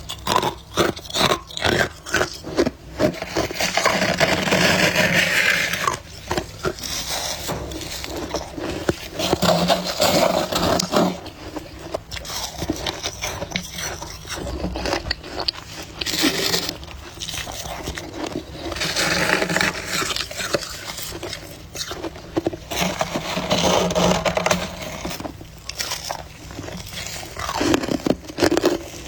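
Close-miked biting and crunching of powdery freezer frost: many crisp crunches between longer stretches of grinding chewing.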